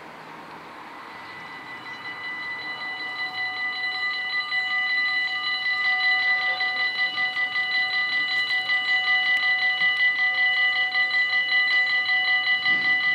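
Electronic warning bells of a Dutch automatic half-barrier level crossing ringing rapidly, a cluster of high tones that grows louder over the first few seconds and then holds steady. They are the warning that a train is approaching and the barriers are about to close.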